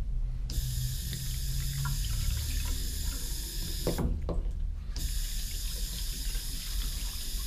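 Water running from a restroom sensor faucet into the sink as hands are washed under the stream. It breaks off briefly about halfway, then runs again.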